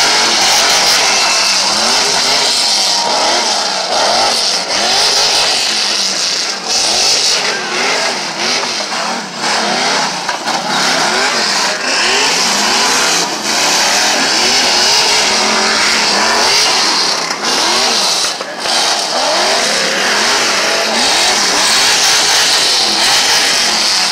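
Tuff truck's engine, loud and revving hard, its pitch rising and falling again and again as the throttle is worked on a dirt obstacle course.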